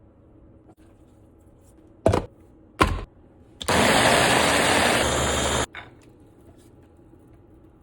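Electric blender pureeing cooked rice with garlic, olive oil and water: two short pulses, then about two seconds of steady running that cuts off abruptly.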